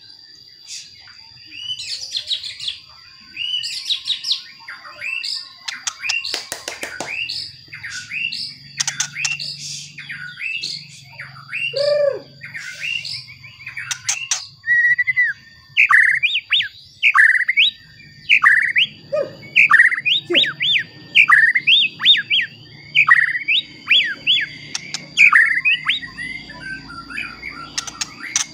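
White-rumped shama singing. Varied whistled phrases come first, and from about halfway it switches to a fast run of repeated sharp downslurred notes.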